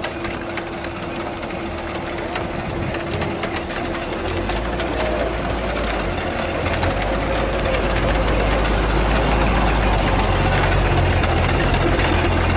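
Miniature steam traction engines running as they are driven past, getting louder as the nearest one draws close. A low engine hum comes in about four seconds in and swells toward the end.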